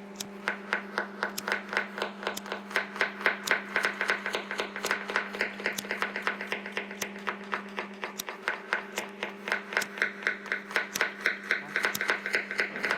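Rapid, fairly even tapping or clicking, about five sharp taps a second, over a steady low hum.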